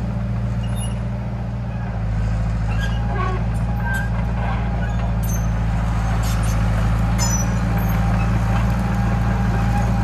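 John Deere 450B crawler bulldozer's engine running hard, working the machine; the engine note gets louder about two seconds in and stays up. Scattered light cracks and clicks sound over it.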